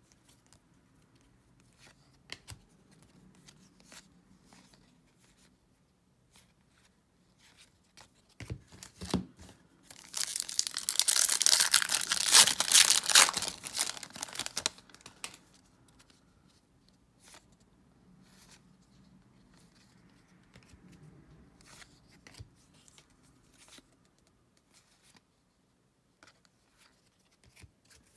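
Silver foil baseball-card pack wrapper torn open and crinkled by hand: a loud crackling stretch of about five seconds near the middle, after a couple of soft knocks. The rest is faint rustles and ticks of a stack of cards being handled.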